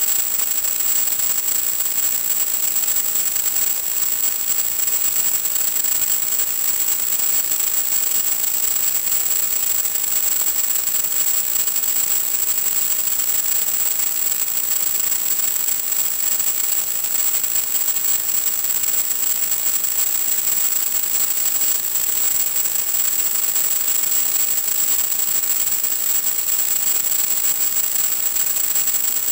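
Steady radio static hiss, heavier in the highs, with a constant high-pitched whine on top: the empty audio channel of an analog FPV video link recorded at the receiver.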